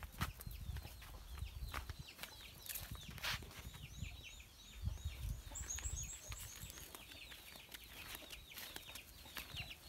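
Chickens calling: many short, high, falling chirps repeat quickly, with a brief run of higher chirps in the middle, over a low rumble and a few sharp knocks.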